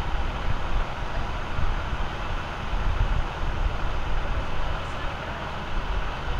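Steady low rumble of a fire engine's diesel engine idling.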